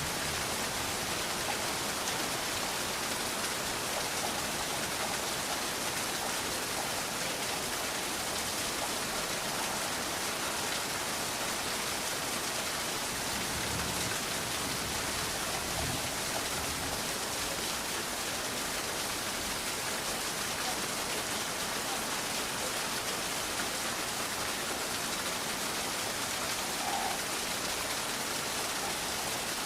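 Steady heavy rain pouring down, with a faint low rumble about halfway through.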